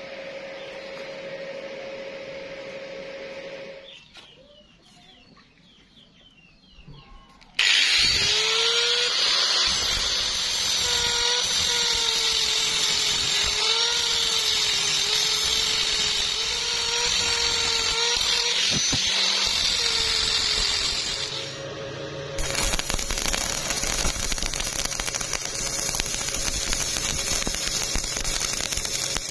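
An angle grinder cutting a steel pipe starts abruptly about eight seconds in. Its whine dips and recovers under load and lasts about thirteen seconds. Shortly after it stops, a stick-welding arc burns with a steady crackling hiss.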